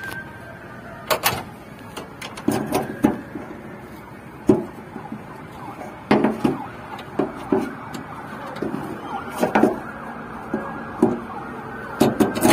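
Irregular knocks and clunks, about a dozen scattered unevenly through, over a steady low background hum.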